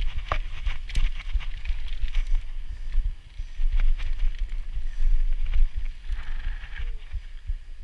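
Mountain bike riding fast down a dirt trail: the tyres hiss on the dirt while the chain and frame clatter with sharp knocks over bumps. Heavy wind rumble sits on the camera microphone.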